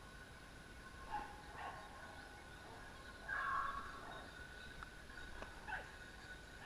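Distant petit basset griffon vendéen and basset fauve de Bretagne hounds giving tongue on a wild boar's trail: faint barks, with a longer, louder bay about three seconds in.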